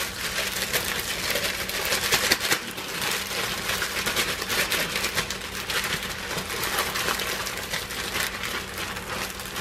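Plastic bag rustling and crinkling continuously as raw chicken thighs are shaken inside it to coat them in a seasoning mix.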